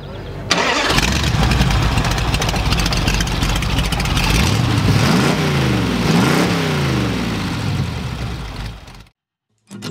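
Supercharged rat rod engine with a scoop-topped blower: it catches suddenly about half a second in and runs loud and rough. It is revved up and down twice near the middle by hand at the throttle linkage, then the sound ends abruptly near the end.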